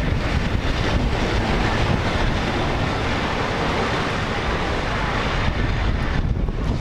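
Wind buffeting the microphone over Lake Superior surf, waves breaking and washing up the sand beach in a steady, heavy rush.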